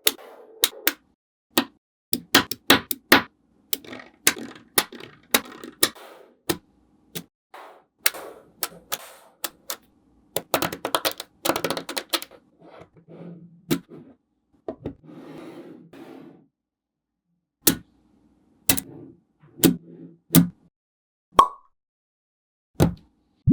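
Small magnetic balls clicking and snapping together as they are placed, in irregular sharp clicks with quick clusters and soft rattling as strings of balls are handled, plus one brief ping near the end.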